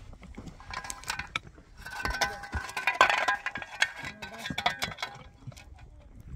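A metal shovel scraping and clinking against stony soil and a metal basin: a run of ringing metallic knocks and scrapes, heaviest about three seconds in.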